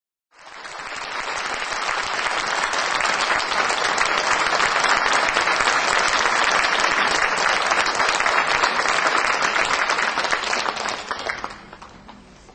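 Audience applauding: the clapping builds over the first couple of seconds, holds steady, then dies away near the end.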